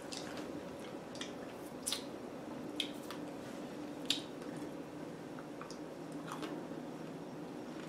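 Quiet, wet mouth sounds of someone chewing a chocolate-covered strawberry: a few soft smacks and clicks, the sharpest about two, three and four seconds in, over a faint steady hum.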